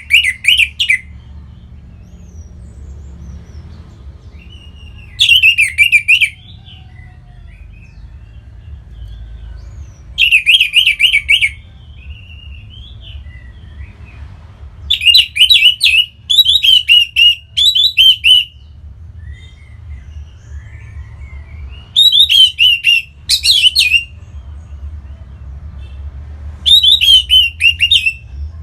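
Orange-headed thrush singing in six loud phrases of fast, repeated high notes, about five seconds apart, with a longer phrase in the middle. A steady low hum runs underneath.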